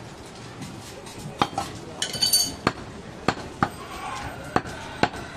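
A butcher's large knife chopping goat meat on a wooden log block: about half a dozen sharp strikes at uneven spacing. A brief metallic clink rings out about two seconds in.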